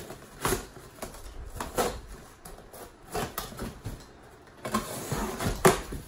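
Cardboard box being opened: a box cutter slitting the packing tape and the flaps being pulled apart, in a series of short scraping, tearing bursts, the loudest near the end.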